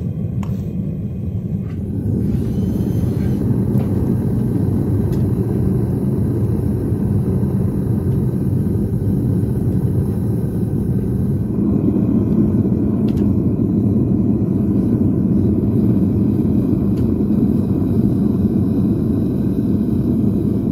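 Gas-fired melting furnace burner running with a steady, low rumble while it melts scrap e-waste copper in the crucible. It gets louder about two seconds in and again near the middle.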